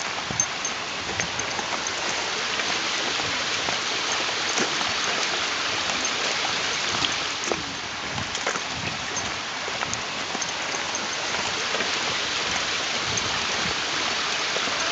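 Steady rush of running water, like a creek flowing over rocks.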